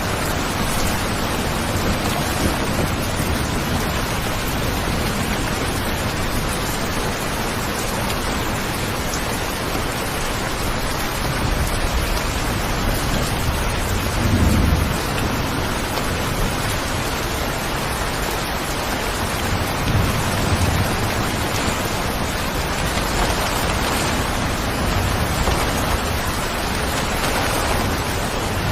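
Steady rain falling, an even hiss of drops. A low rumble swells about halfway through, with fainter low swells later.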